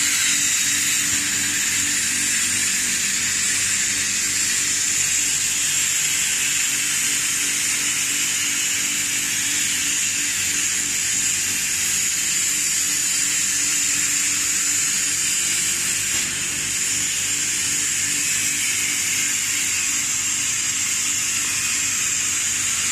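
Chocolate coating pan machine running, a steady low hum under a constant high hiss that doesn't change.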